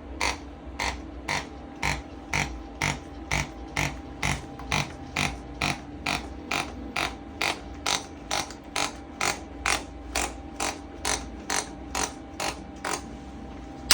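Pulstar chiropractic adjusting instrument clicking in a steady even rhythm of about two and a half impulses a second as it delivers its percussive adjustments.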